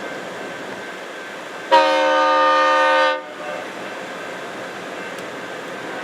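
Diesel locomotive air horn sounding one blast of about a second and a half, a chord of several notes that cuts off sharply, over the steady noise of a rolling train.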